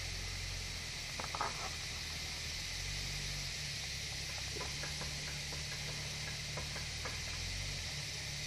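Jeep Wrangler TJ crawling up a rock step, its engine a low, uneven rumble under a steady hiss, with a few faint clicks about a second in and again midway.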